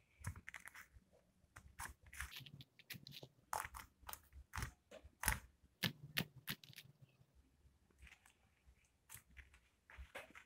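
Homemade white glitter slime being kneaded and pressed with the fingers, giving faint, irregular wet clicks and squelches.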